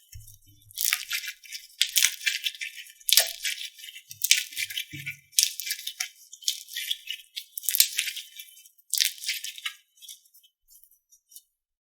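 Slime being squeezed and worked by hand, giving bursts of crisp, hissy crackling about once a second.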